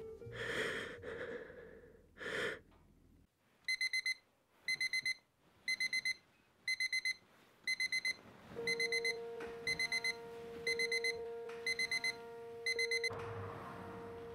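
Digital bedside alarm clock going off: short bursts of rapid high-pitched beeps repeating about once a second, starting a few seconds in. A steady low tone joins them about two-thirds of the way through.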